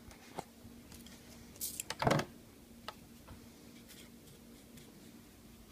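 Light clicks and knocks of small objects being handled on a tabletop, with a short louder clatter about two seconds in, over a faint steady low hum.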